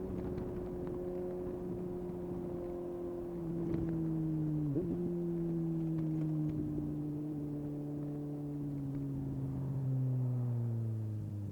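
Suzuki GSX-S750's inline-four engine through a decatted Yoshimura exhaust with no dB killer, ridden at steady revs. About five seconds in the revs dip sharply and recover, and then the pitch slowly falls as the bike slows.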